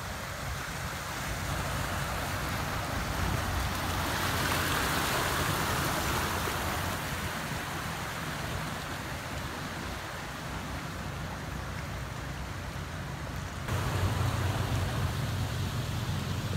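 Small Toyota SUV driving through deep flood water, the water rushing and sloshing around its wheels, loudest as it passes close about five seconds in. Near the end the sound changes abruptly to a steadier low hum over moving water.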